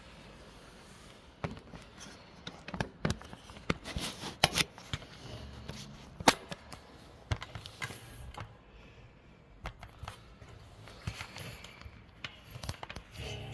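Hands handling and fitting small parts: an irregular run of sharp clicks and knocks with soft rustling between them, the loudest knock a little past the middle.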